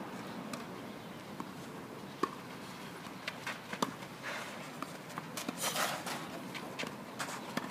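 Tennis ball struck by rackets in a rally: a few sharp pops a second or two apart, the loudest about two and four seconds in.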